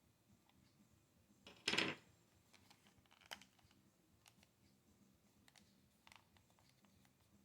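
Faint clicks and ticks of a PS4 controller's plastic shell being handled, with one short, louder scrape a little under two seconds in and a sharp click about a second later.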